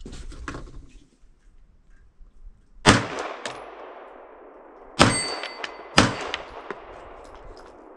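Three 9mm pistol shots from a Glock 45 MOS, the second about two seconds after the first and the third a second later, each with a long echoing tail; after the later shots a struck steel target rings faintly. Lighter clicks of the pistol being handled come in the first second.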